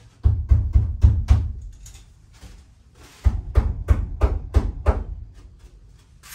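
Background music with a quick, steady percussive beat that thins out for about a second in the middle.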